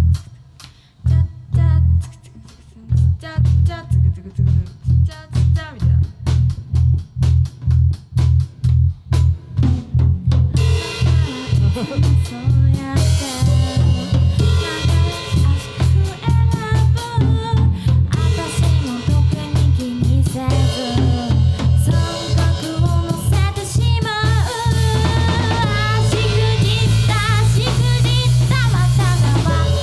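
Live rock band playing: a steady, even pulse of kick drum and bass alone, then the full band with electric guitars comes in about ten seconds in.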